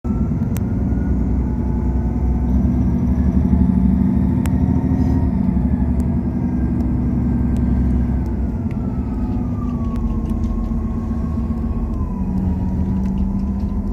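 A moving passenger train heard from inside: a steady running rumble with a low hum and a higher whine that drops in pitch in the second half, and a few sharp clicks.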